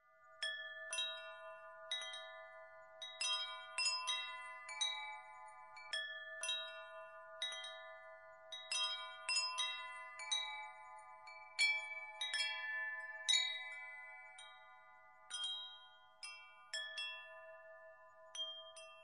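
Wind chime ringing: light, irregular strikes, each leaving several clear tones that ring on and overlap, with a few short pauses near the end.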